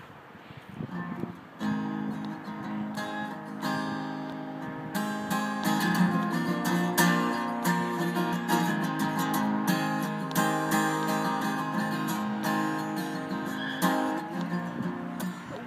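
Cutaway acoustic guitar strummed in chords, the instrumental opening of a song: quiet for the first second and a half, then steady, even strumming.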